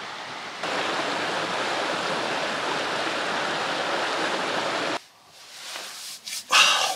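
Small rocky mountain stream rushing steadily over stones; the sound comes up about half a second in and cuts off abruptly about five seconds in. A short, loud noise follows near the end.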